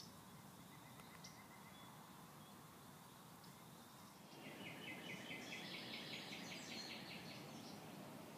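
Quiet outdoor background with a few faint chirps. About four seconds in, a small songbird starts a rapid, high, chattering trill that carries on to the end.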